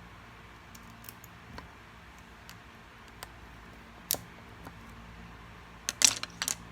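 Lego bricks being handled and pressed together: scattered small plastic clicks, a sharper one about four seconds in, and a quick run of clicks near the end.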